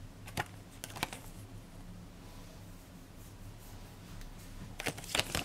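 A small paper certificate card handled between the fingers: a few short, soft paper rustles and taps, two in the first second or so and a quick cluster near the end, over a faint low hum.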